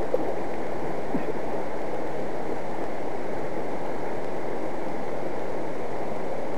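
Mountain river running over rocks: a steady, even rush of water.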